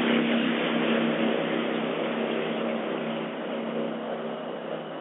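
An engine running with a steady hum, slowly fading away.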